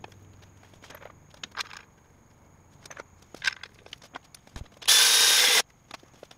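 Scattered light clicks and knocks of metal parts being handled at a manual transaxle and its bell-housing adapter plate. About five seconds in, a short, loud hiss lasts under a second and cuts off suddenly.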